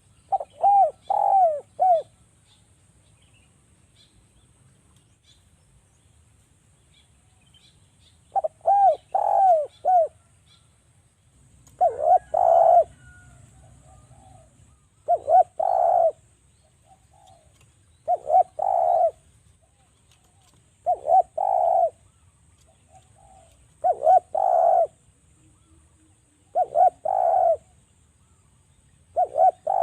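Spotted dove (derkuku) cooing: short phrases of several quick coos, a phrase about every three seconds after a longer pause near the start.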